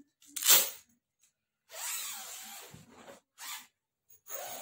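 Nylon shell of a fleece-lined sleeping bag rustling and swishing as it is handled and opened out, in several bursts: a short sharp one about half a second in, a longer stretch of about a second and a half around the middle, and two brief ones near the end.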